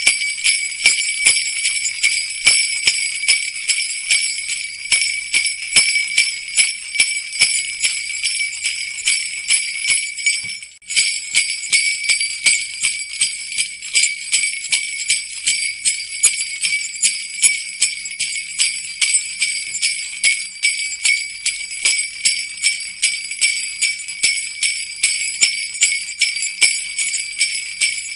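Jingle bells shaken steadily, a continuous high jingling that pulses about twice a second, with a brief dip about eleven seconds in.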